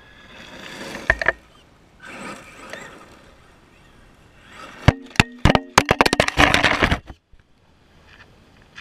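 Traxxas E-Revo RC truck with a brushless Mamba motor running on gravel: a rising whine and gravel crunch as it comes close, with sharp knocks about a second in. From about five seconds in comes a run of hard knocks, gravel spray and motor whine as the truck runs into the camera, stopping suddenly near seven seconds.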